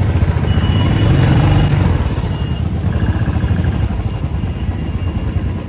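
Motorcycle engine running under way, with wind rushing over the microphone.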